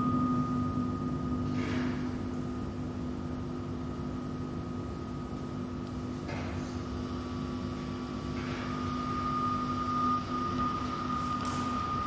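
A steady droning hum with several held tones over a low rumble, and a few faint, brief soft hisses.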